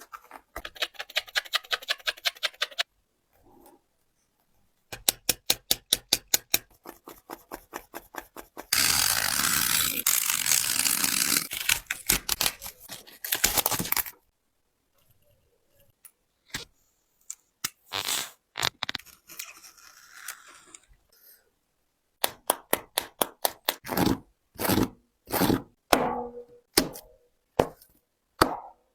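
A basketball sneaker being cut apart: quick runs of sharp snipping strokes, several a second, and about nine seconds in a continuous tearing noise lasting roughly five seconds, with scattered single clicks between.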